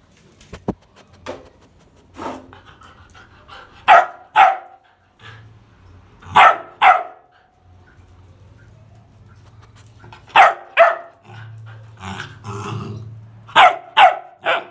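Black Labrador puppy barking, in quick pairs of sharp barks a few seconds apart, with three in a row near the end.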